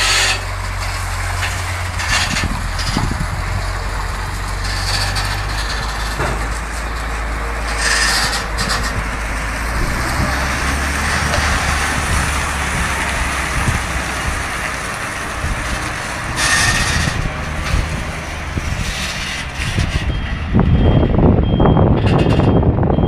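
Heavy diesel semi-truck engines running at low speed while manoeuvring, with short hisses of compressed air from the air brakes about 8 and 16 seconds in. About 20 seconds in a truck passes close and the engine rumble grows louder, joined by a faint intermittent beeping.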